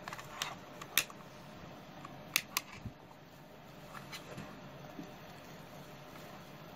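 Sharp plastic clicks and taps from a yellow DT830 digital multimeter and its test leads being handled, about seven in all, the loudest about a second in and two close together near two and a half seconds. A faint steady hiss lies under them.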